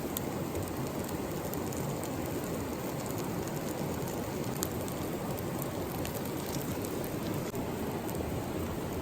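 Steady rain: an even hiss with scattered faint ticks.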